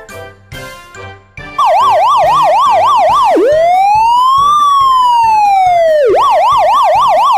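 Police car siren that comes in suddenly about a second and a half in, after a short bit of light music. It sweeps fast up and down several times a second, changes to one slow rise and fall, then goes back to the fast sweeps.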